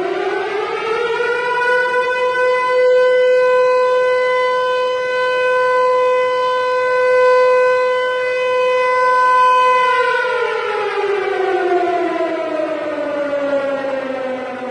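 Civil defense siren, the stock film recording reputed to be a Harry O Ricci Siro-Drone. It finishes winding up to a steady high wail, holds it for about eight seconds, then winds down, falling in pitch through the last few seconds.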